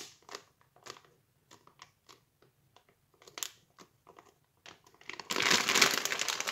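Plastic freezer bag crinkling as it is handled and pressed, with the frozen tomato-sauce pieces inside shifting. Scattered small crackles at first, then a louder stretch of crinkling lasting about a second near the end.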